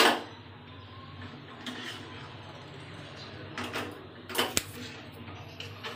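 Cooking utensils against a pan: a sharp clink at the start, then a few faint clicks and knocks, over a steady low hum.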